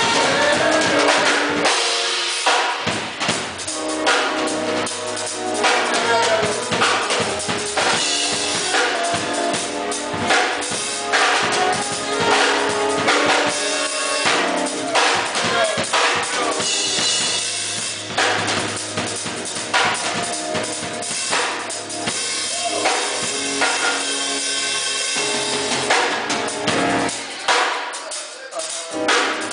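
Music with a drum kit: kick, snare and rimshot strokes keeping a beat under several pitched instruments.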